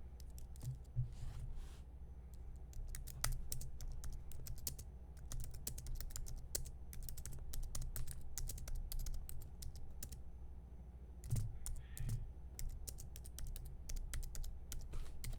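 Typing on a computer keyboard: irregular, quick runs of key clicks, pausing briefly about ten seconds in.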